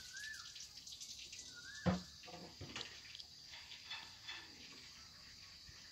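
Small clicks and taps from the parts of a table fan's mechanical timer being handled and fitted, with one louder knock about two seconds in.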